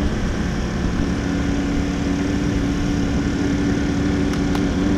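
Trophy truck engine running steadily under heavy road and drivetrain rumble, holding one even pitch, with two faint clicks near the end.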